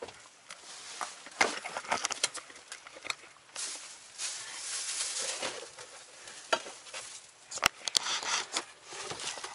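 Rustling of bags and gear being handled, with scattered small clicks and knocks, a longer stretch of rustling about halfway through and two sharp clicks near the end.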